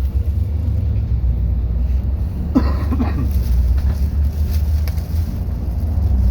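MAZ 216.047 city bus running, heard from inside the cabin: a steady low engine and road rumble. About two and a half seconds in comes a brief high sound whose pitch bends.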